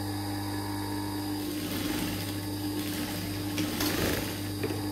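Industrial sewing machine stitching a seam through layered fabric, its motor humming steadily underneath.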